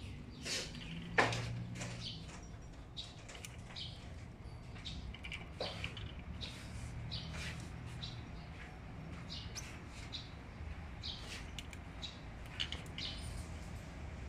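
Gouldian finches giving short, high chirping calls, scattered irregularly, with a sharp knock about a second in.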